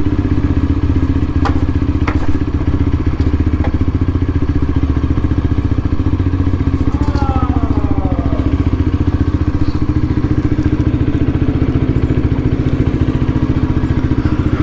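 A 125cc motorcycle engine running steadily at idle on its original exhaust, with an even pulsing beat, heard from the rider's seat. A couple of sharp clicks come about a second and a half and two seconds in.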